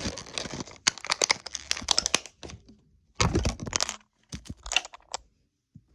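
Blind-box mystery-figure packaging being handled and opened: crisp crackling and clicking in dense bursts for about two and a half seconds, then two shorter bursts after a brief pause.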